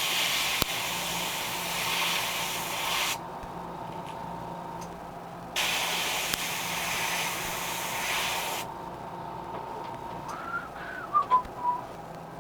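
Airbrush spraying paint in two bursts of about three seconds each, a couple of seconds apart, laying light coats of yellow on a crankbait's belly. Near the end, a brief high-pitched sound that wavers up and down in pitch.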